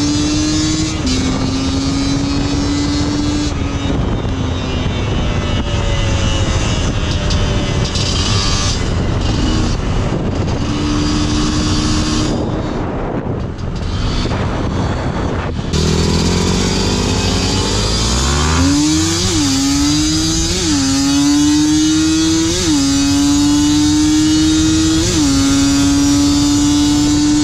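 TSE250R single-cylinder two-stroke with a Gen 3 expansion chamber exhaust, running under way on a ride with wind noise over it. At first the engine note holds fairly steady. About two-thirds of the way in, the pitch climbs as the throttle is rolled on and keeps pulling, with several brief rises and dips in pitch.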